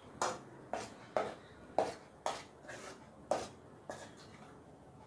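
Thick fruit paste cooking in a steel pot on low heat: a string of short, sharp plops and clicks, roughly two a second.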